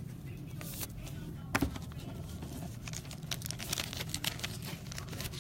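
Faint scattered clicks and light rustling from small objects being handled, with one sharper click about a second and a half in, over a low steady hum.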